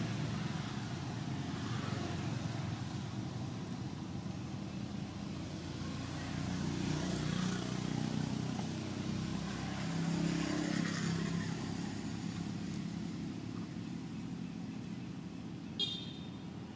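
Engine noise from passing motor vehicles, a low hum that swells in the middle and fades again. A brief high chirp near the end.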